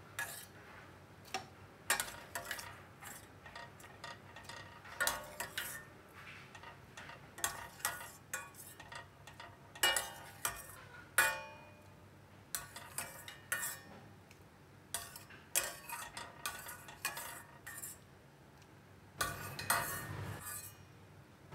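Long metal ladle clinking and scraping against a stainless steel pot, again and again, as boiled pumpkin chunks are scooped out; each clink rings briefly.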